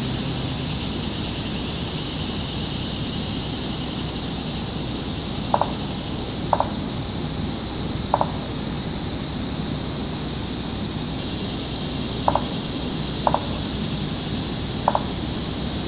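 Woodland ambience: a steady high hiss, with six short double calls, low in pitch, scattered through the second half.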